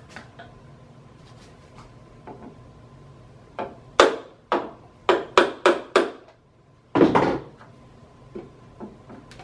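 A run of sharp knocks from hand tools, about seven in two seconds, then one longer, rougher crack as a chisel is worked into the flange seam of a fiberglass fuselage mold.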